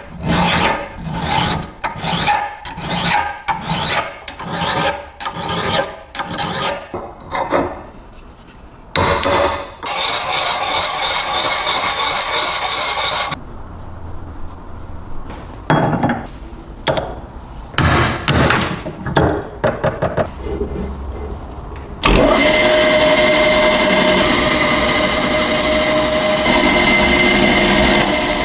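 Rusty metal being rubbed back and forth by hand, about two strokes a second, then stopping. Later a small power tool runs steadily with a constant tone.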